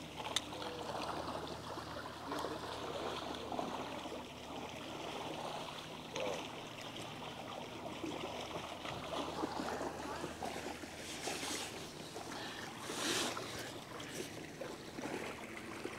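Faint steady water noise, an even rushing haze with a few soft clicks scattered through it.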